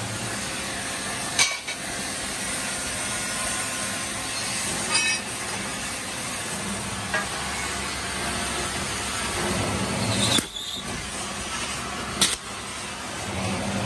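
Oxy-fuel cutting torch hissing steadily as it cuts through a metal cylinder, with a few sharp clicks along the way.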